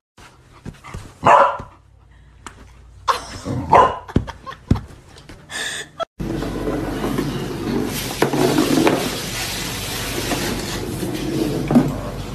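A dog barking and yipping in short bursts, four or five times over about six seconds. After a sudden break there is a steady rushing background noise.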